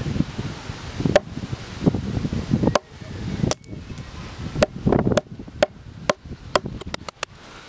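Axe chopping into an upright sweet chestnut log, splitting wood away down to a saw cut to shape a mallet handle. About a dozen sharp strikes, coming quicker in the second half.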